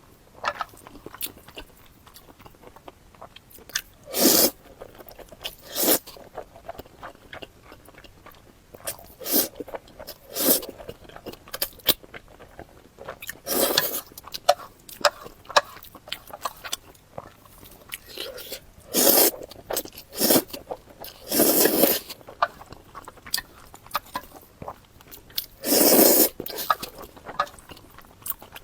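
A person eating close to the microphone: irregular crunchy bites and chewing, with half a dozen louder bites spread through.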